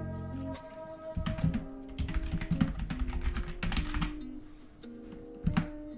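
Typing on a computer keyboard: a quick run of key clicks for about four seconds, over background music.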